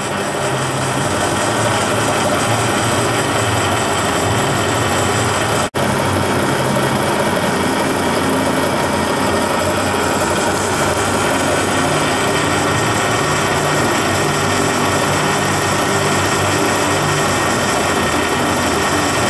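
Smithy metal lathe running steadily, turning down a high-carbon steel axle shaft held between centers, with the tool taking a light cut of about twelve thousandths off its diameter. The steady machine noise breaks off for an instant about six seconds in.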